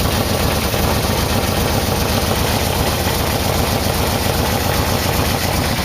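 Yamaha VMax motorcycle's V4 engine idling steadily, with a homemade vacuum gauge hooked to its carburetors to check their synchronization.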